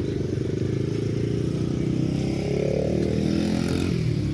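A vehicle engine running, rising in pitch as it is revved or accelerates from about two seconds in, then dropping back near the end.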